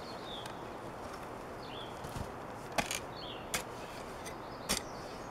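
Garden fork working clay soil, its steel tines striking and breaking the clods with four sharp clicks in the second half. A bird gives short falling chirps about once a second.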